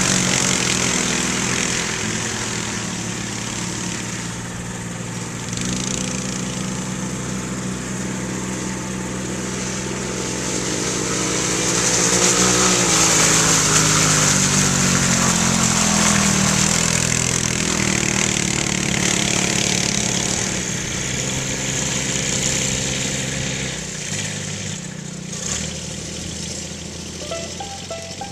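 A small engine running, its pitch rising and falling as it revs up and eases off, loudest around the middle.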